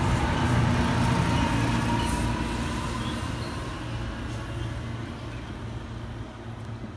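NJ Transit Arrow III electric multiple-unit train running past and away, its rumble and a steady whine fading as it recedes.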